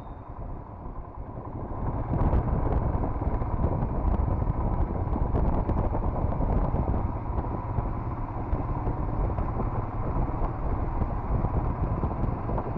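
Royal Enfield Himalayan's single-cylinder engine running as the motorcycle rides along, mixed with wind and road noise; it gets louder about two seconds in and then holds steady.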